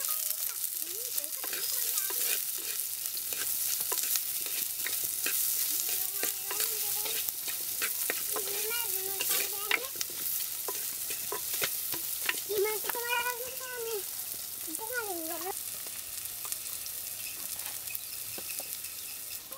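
Food sizzling and frying in a hot pan while being stirred, a steady hiss that runs on. A few short wavering pitched sounds come over it around the middle.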